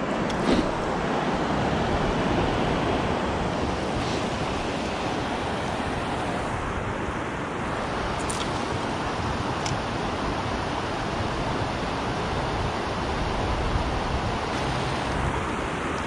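Steady rush of river water pouring over a spillway and running over rocks.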